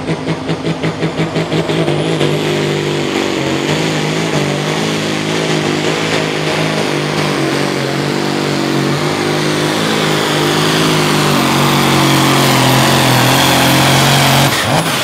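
Turbocharged John Deere 4455 diesel hot farm tractor at full throttle pulling a weight-transfer sled. The engine throbs about four times a second for the first couple of seconds, then runs steadily and grows louder, with a high whine climbing in over the first couple of seconds. The engine note breaks off sharply near the end.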